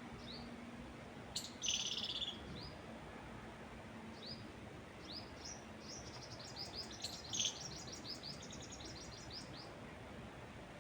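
Small songbirds chirping: short, high, down-slurred chirps about every second, a louder burst of song about a second and a half in, and a quick run of chirps from about six to nine and a half seconds. Under them runs a soft, steady hiss of wind in trees.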